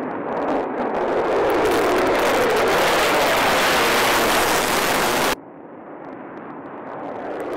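F-35 Lightning II fighter jet's single F135 turbofan at takeoff power as the jet climbs past, a loud jet roar that builds over the first second or so and holds steady. It cuts off suddenly about five seconds in, then a fainter jet roar from another F-35 lifting off builds again near the end.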